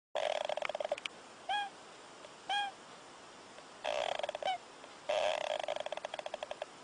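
An animal snoring in rattling bursts of about a second each, three times, with short rising-and-falling chirps in the pauses between them.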